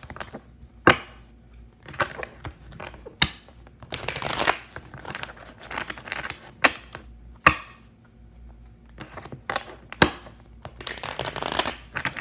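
A deck of tarot cards being shuffled by hand: the cards rustle and slide against each other, with about four sharp slaps or taps spaced a few seconds apart.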